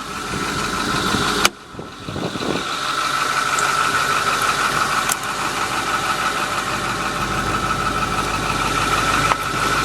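Ford F-450's 6.4-litre Power Stroke turbodiesel V8 idling steadily with a constant high whine. A sharp click comes about a second and a half in.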